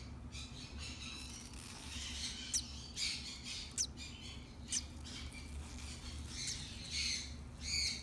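Newly hatched sun conure chick giving a handful of short, high, thin peeps over a steady low hum.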